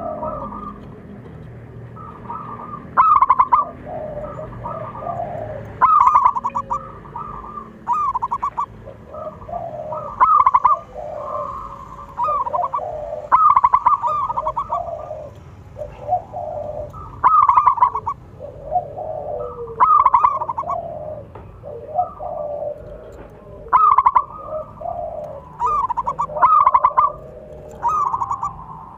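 Zebra dove (perkutut) cooing: loud, repeated phrases of quick staccato notes every two to three seconds, with softer, lower coos in between.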